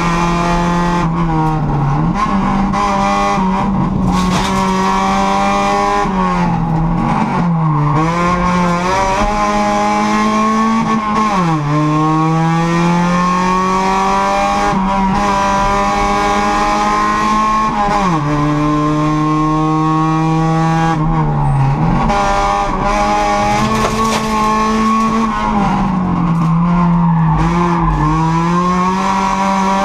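Honda Civic race car's four-cylinder engine heard from inside the cabin, driven hard. Its pitch climbs steadily, then drops sharply several times at gear changes and braking, and climbs again.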